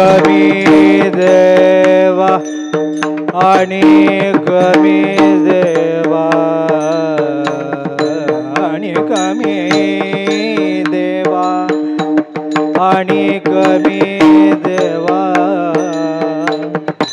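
Marathi devotional bhajan: a singer draws out a long ornamented melodic line over a steady drone, while small brass hand cymbals (taal) and percussion keep a running beat.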